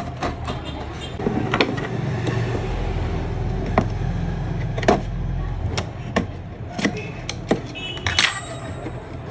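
Scattered clicks and knocks of plastic and metal parts being handled as a computer monitor is taken apart, over a steady low hum.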